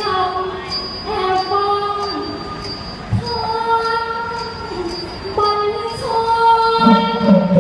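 A woman singing over live music, holding long notes that step from pitch to pitch, with a high metallic tick keeping time about twice a second. A lower pitched sound comes in near the end.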